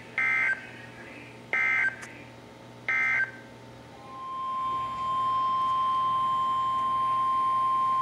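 NOAA Weather Radio broadcast through weather radio speakers: three short warbling data bursts about a second and a half apart, the SAME digital end-of-message code closing a severe thunderstorm warning. About four seconds in, a steady single-pitch alert tone of about 1050 Hz fades in and holds, the warning alarm tone that opens the next alert.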